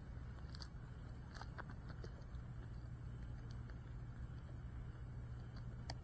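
Faint background noise: a steady low rumble with a few faint scattered ticks.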